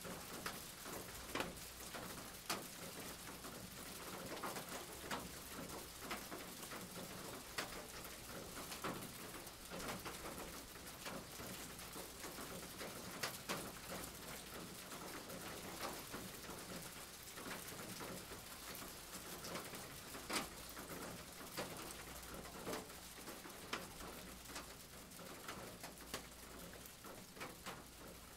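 Rain falling steadily, with scattered sharp drips tapping irregularly.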